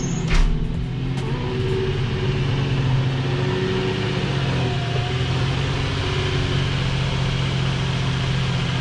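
A machine running steadily with a low hum and a strong hiss over it, and a sharp knock about a third of a second in.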